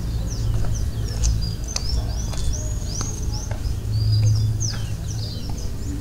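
Many small birds chirping together in quick, high, arched notes, over a low steady hum.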